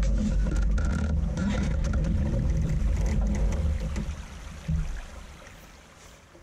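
Wind buffeting the microphone in a loud, uneven low rumble, with water running through a stick dam beneath it and a few faint clicks. It fades out from about four and a half seconds in.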